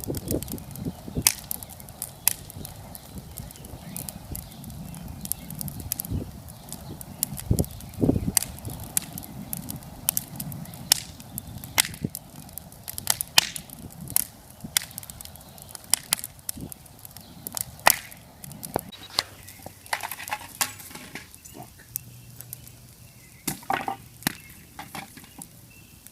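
Wood fire in a fire pit crackling, with sharp irregular pops and snaps as old pool cues and a wooden stool burn.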